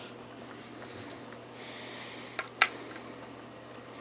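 Quiet room hiss with a soft rustle and then two sharp clicks close together about two and a half seconds in.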